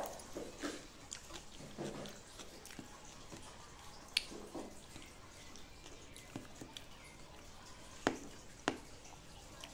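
Close chewing and mouth sounds of someone eating a rice dish, soft and irregular, with three sharp clicks, one about four seconds in and two close together near the end.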